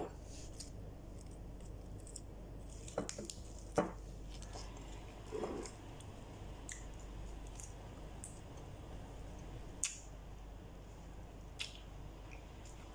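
Faint eating sounds of a person eating rice with her hands: soft chewing and handling of food, with a few sharp clicks and taps scattered through, the loudest about four seconds in.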